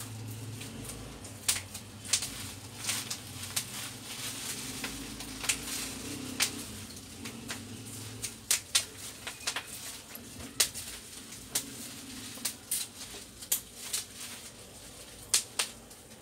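Irregular clicks, taps and plastic rustles from hands handling a laptop LCD panel and its plastic wrapping, over a low hum.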